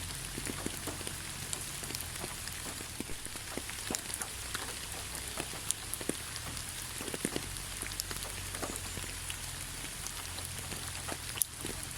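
Steady rain falling on a surface, with scattered individual drops ticking irregularly throughout and one louder drop near the end.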